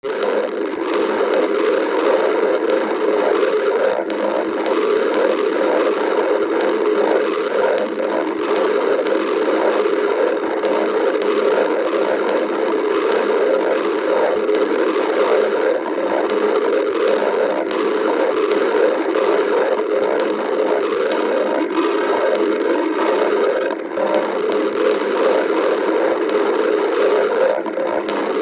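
Human stomach growling: a continuous gurgling rumble that runs without a break, dipping briefly near the end.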